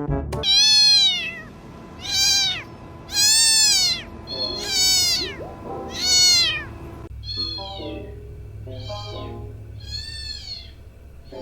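A cat meowing over and over, about ten meows evenly spaced roughly a second apart, each rising then falling in pitch. These are the cat sounds being tried out to call a cat. The meows grow quieter about seven seconds in, over a low steady hum.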